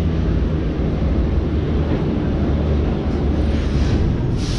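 Steady deep rumble of a metro train in the station below, with a burst of hiss starting near the end.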